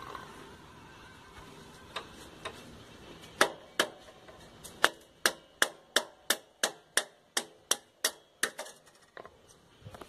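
Hammer tapping on a 10 mm nut driver used as a drift, knocking the centre-stand and rear-brake-pedal pivot shaft out of a Yamaha YBR Factor 125. A couple of light taps come first, then a steady run of sharp metallic strikes, about two or three a second, which stop near the end.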